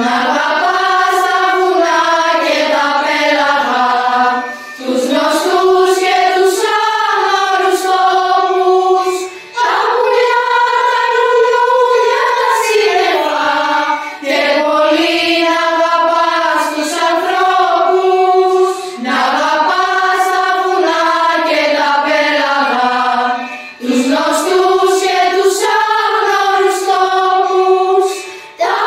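A school choir of children singing a melody together, in phrases about five seconds long with short breaks for breath between them.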